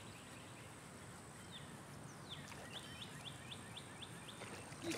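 Faint bird calls over a steady outdoor hiss: short, high, falling chirps, with a quick run of about six, roughly four a second, a little under halfway through.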